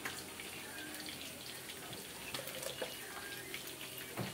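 Cooking oil poured from a plastic bottle into an aluminium wok, a liquid trickle over a steady hiss, with a few light clicks about halfway through.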